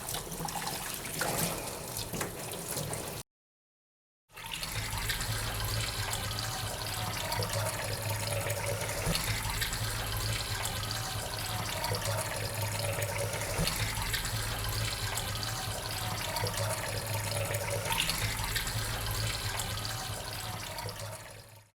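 Tap water running into a sink. It breaks off completely for about a second near the start, then runs on steadily over a low hum and fades out at the end.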